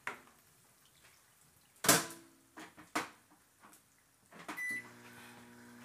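Microwave oven being used: its door knocks and clicks, with the loudest knock about two seconds in and another a second later. A short beep follows, and then the microwave starts running with a steady hum.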